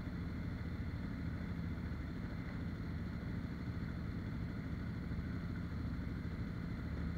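Off-road vehicle engine idling steadily inside a rock tunnel.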